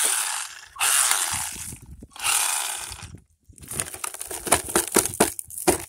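1/16 Cheerwing short course RC truck's electric motor and drivetrain run in three short gritty, grinding bursts with dirt caught inside, followed by scattered crackling clicks.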